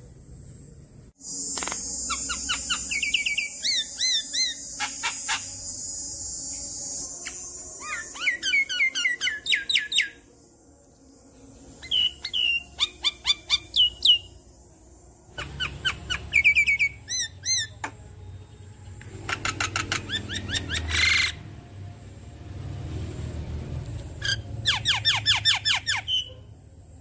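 Adult Javan myna singing in bursts: phrases of rapid chirps, whistled glides and quick rattling runs of sharp notes, with a long harsh rasping stretch near the start, broken by short pauses.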